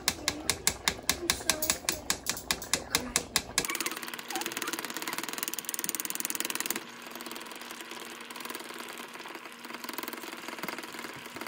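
Stainless-steel mesh strainer rattling and tapping against the rim of a pan as it is shaken to drain blended chile sauce through the mesh. Quick, even taps about five or six a second at first, turning into a faster, steady rattle a few seconds in, which grows softer in the second half.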